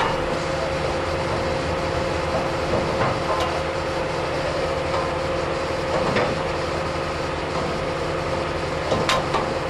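Engine of rail track construction machinery idling steadily, a constant hum with a fixed tone, with three light metallic knocks from workers handling parts at the rail-car coupling.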